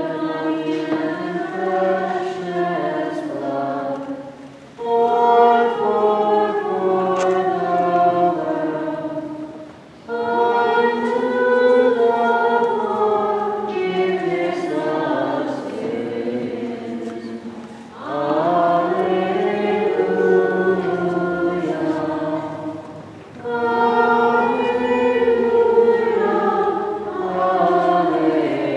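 Voices singing a Byzantine liturgical chant together, in long held phrases with short breaks between them.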